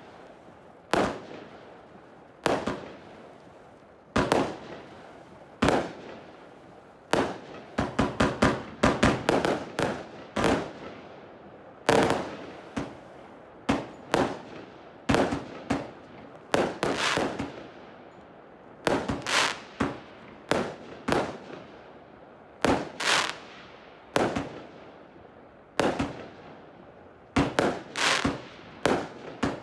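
Firework compound cake firing shot after shot: sharp launch thumps and aerial bursts, some single and about a second apart, others in quick rapid clusters, each with a brief crackling fade.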